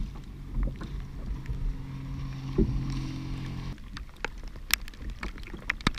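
Water splashing and sloshing along a wooden sailing canoe's hull as it is paddled, with scattered knocks and clicks. A steady low hum underneath stops about two-thirds of the way through.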